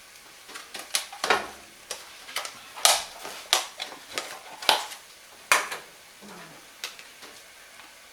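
A utensil stirring a chocolate rice-flour mixture cooking in a pan, making irregular scrapes and knocks against the pan. The strokes are loudest from about three to five and a half seconds in.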